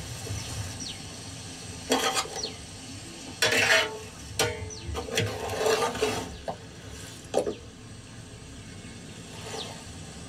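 A spoon stirring and scraping chopped okra mixed with spices in a steel bowl, in several irregular strokes, the loudest a little before the middle.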